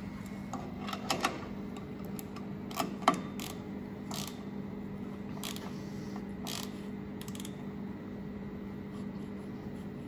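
Scattered light metallic clicks and taps of hand tools against a clamshell grill's stainless-steel platen and frame while its adjusters are wound and the L-shaped gapping tool is slid in to set the platen gap. A steady low hum runs underneath, and the clicks die away after about seven seconds.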